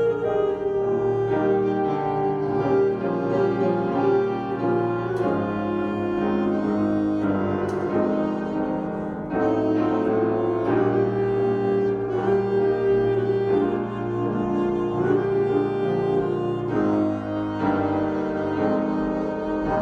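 Slow instrumental music with piano and sustained bowed-string notes, the chords changing every second or two.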